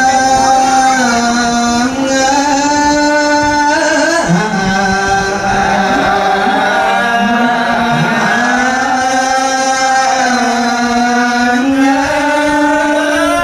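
A single voice chanting a slow, melodic Buddhist verse, holding long notes that slide gently between pitches.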